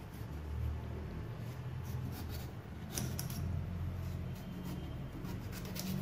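Raw beetroot root being cut into small pieces: irregular clicks and scraping of a blade through the hard root, over a low steady hum.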